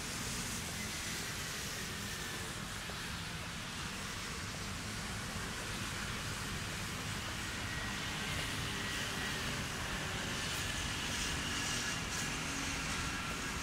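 Steady outdoor city ambience: a low hum of distant traffic, with faint thin high tones coming and going.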